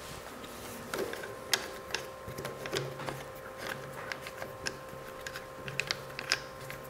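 Light clicks and small knocks of metal clamp and mounting hardware being handled and adjusted by hand on a workstation stand's mast, scattered irregularly, over a faint steady hum.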